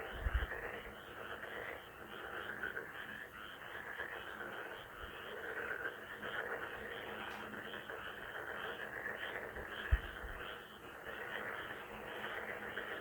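A dense chorus of many frogs croaking continuously, their calls overlapping. A low dull thump comes just after the start and another about ten seconds in.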